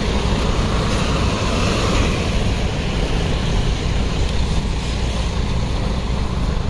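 Road traffic on a town street: a steady noise of cars with a strong low rumble.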